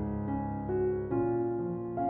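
Slow, gentle piano music: a melody of held notes over a low accompaniment, with a new note about every half second.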